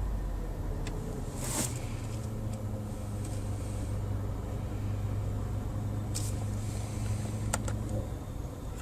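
Steady low hum with a held tone inside the cabin of a Skoda 1.8 with the air conditioning switched on. The owner cannot trace it: it follows engine revs, yet neither the AC compressor nor the alternator hums under the bonnet. A short rustle about a second and a half in, and a couple of faint clicks near the end.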